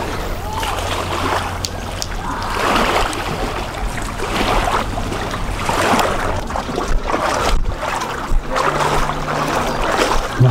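Water lapping and splashing in the shallows at a lake's edge, rising and falling every second or two, with wind rushing on the microphone.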